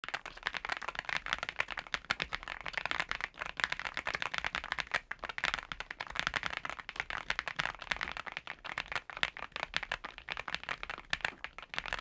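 Continuous typing on a NuPhy Gem80 mechanical keyboard with PBT keycaps: a dense stream of keystroke clacks, many per second.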